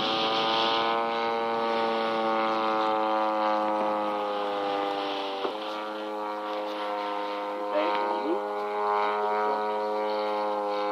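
Zenoah G-38 two-stroke gas engine of a radio-control Fly Baby model plane, running steadily in flight with its propeller. Its buzzing note sinks slightly in pitch, then rises again.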